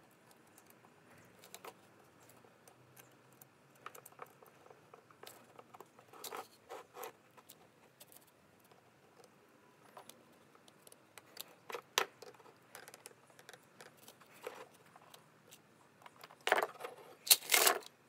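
Small metal clicks and clinks of a brass latch and its screws being handled and screwed onto a metal bracket with a screwdriver, coming in scattered taps, with the loudest clatter in the last two seconds.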